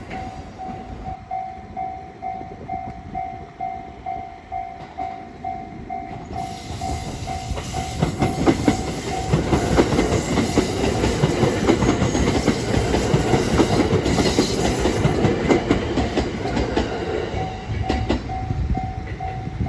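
Level crossing warning bell dinging about twice a second while a train runs over the crossing, its wheels clacking over the rail joints. The train is loudest from about six seconds in until about seventeen seconds, partly drowning the bell.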